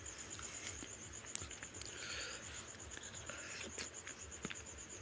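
Close-up eating sounds: fingers squishing and mixing rice with fish curry on a plate, with soft wet clicks of lips and food. A steady high-pitched pulsing tone runs behind.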